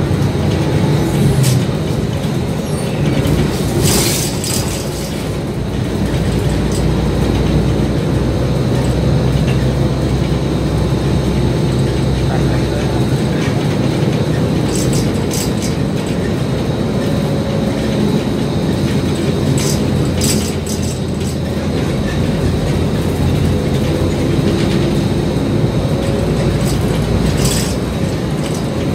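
A city bus's engine running as the bus drives, heard from inside the cabin, its note rising and falling, with a few sharp rattles and clicks from the bodywork.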